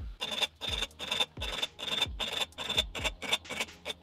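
Flat metal hand file scraping over the ridged metal tube of a vape mod in quick repeated strokes, filing the paint off the ridges.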